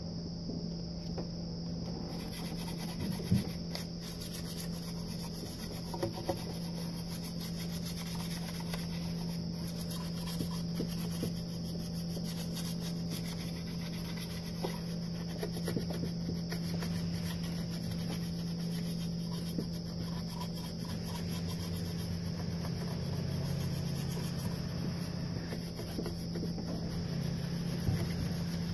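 Faint rubbing and small clicks of a hand handling parts in a car's engine bay, over a steady low hum and a steady high-pitched tone.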